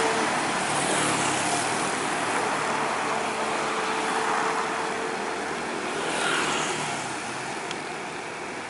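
Road traffic noise of a coach bus and motorcycles on the move, a steady wash of engine and tyre sound that slowly fades toward the end.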